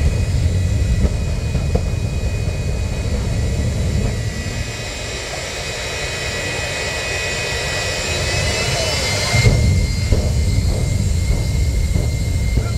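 Jet engine of a jet-powered semi truck running in place with a steady high turbine whine over a heavy low roar. The roar surges with the afterburner flame bursts at the start and again about nine and a half seconds in, and eases off in between.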